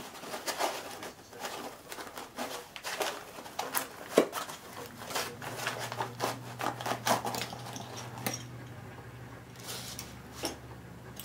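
Packaging and parts being handled: a steady run of crinkles, rustles and small knocks, with one sharp click about four seconds in.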